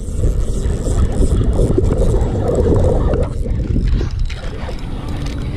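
Wind buffeting the camera microphone, a steady low rumble, with a few faint clicks from handling the spinning rod and reel about three to four seconds in.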